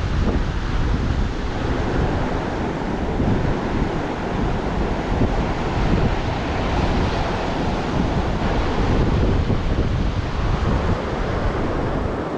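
Pacific Ocean surf washing on the beach, a steady rushing noise, with wind buffeting the microphone.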